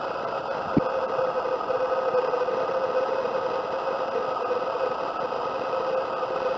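Kyocera ECOSYS FS-3140MFP+ laser printer running with a steady mechanical hum, with a single click about a second in.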